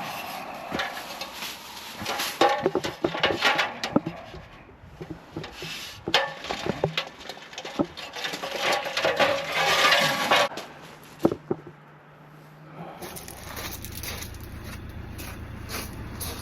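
Repeated scraping and rubbing with sharp clattering knocks, as of hand tools being worked and handled. About thirteen seconds in it gives way to a steady low hum.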